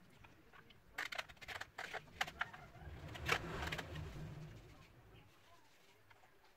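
Light clicks and taps from hands handling a wooden slingshot pistol and its screwed-on wooden grip, with a sharper knock about three seconds in over a low rumble that fades by about five seconds.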